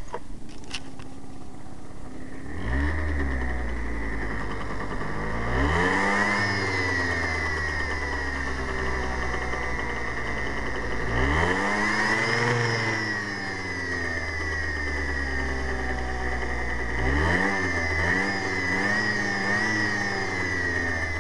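Yamaha Zuma scooter engine running and revved up and back down several times, with a steady high-pitched whirring from the rear drive that carries through the revs. It is an odd whirring from the belt drive, with a freshly fitted drive belt.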